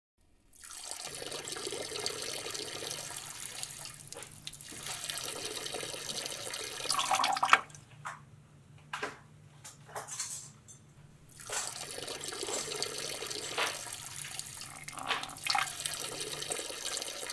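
A stream of urine splashing steadily into a urinal. About seven and a half seconds in it breaks off into a few short spurts, then flows steadily again from about eleven seconds on.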